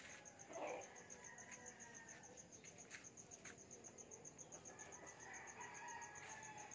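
Faint backyard ambience: an insect's high, rapidly pulsing trill runs steadily, with distant chickens clucking and crowing and a few faint clicks.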